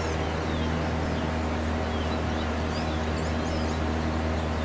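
Boat motor running at a steady drone as the boat moves along the river, with small birds chirping faintly and briefly over it.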